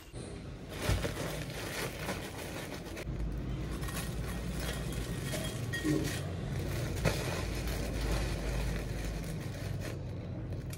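Plastic packet of flattened rice rustling as it is handled and emptied into a glass bowl, over a low rumble that runs through the middle few seconds.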